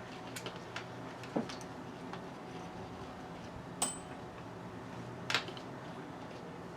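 A few scattered light clicks and metal clinks from hand tools working on a small engine's carburettor, one clink near four seconds in with a brief high ring, over a steady low hum.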